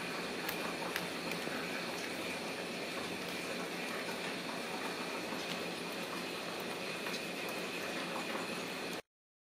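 Steady hissing background noise with a faint high whine, with scattered faint clicks and taps from kittens playing on a tile floor; it cuts off suddenly near the end.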